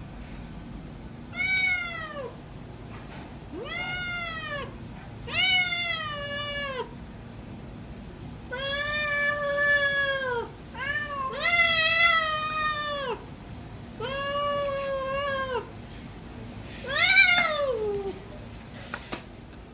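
Domestic cat meowing over and over, about eight calls. The first few are short and arch then fall in pitch, the middle ones are longer and held level for up to two seconds, and the last one drops away at the end.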